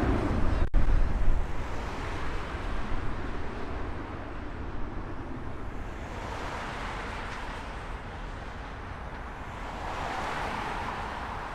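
Wide-body jet airliner's engines roaring on departure, the noise fading away over the first few seconds as it climbs off, with wind buffeting the microphone.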